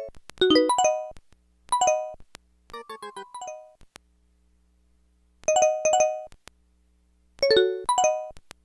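Samsung SPH-A840 cell phone playing a polyphonic ringtone through its small speaker: short phrases of bright synthesized chime notes separated by pauses, with a quick run of notes about three seconds in and a silent gap of about a second and a half in the middle.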